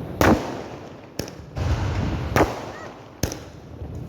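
Firecrackers going off: four sharp bangs about a second apart, each trailing off in an echo.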